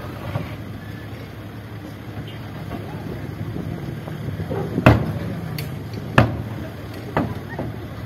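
Dump truck's diesel engine running as the truck lowers its tipped bed and pulls away from a dumped load of soil, with three sharp bangs about five, six and seven seconds in, the first the loudest.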